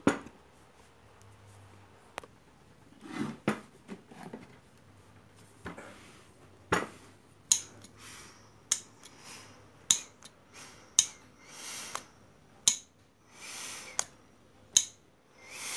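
Sharp metallic clicks and light taps, a few at first and then about one a second in the second half. Each click has a brief ring, the sound of metal multimeter probes touching the iron's terminals and metal parts during a resistance test. Near the end come a few short, soft rasping sounds.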